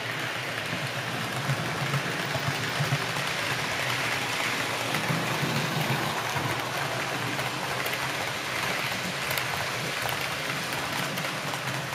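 Electric model trains running past close by: a steady rushing rumble of metal wheels on the rails and the locomotive motors. The locomotives have no sound system, so there are no engine or horn effects.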